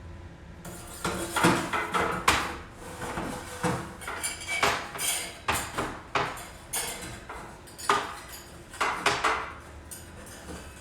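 Irregular metallic clinks and knocks as a new blower wheel is worked onto the fan motor shaft inside the unit's sheet-metal housing, the loudest knocks about one to two seconds in.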